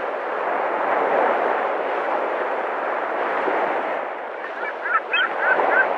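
Indistinct chatter of many people in a large hard-walled room, a steady hum of voices. Near the end come several short, high chirps.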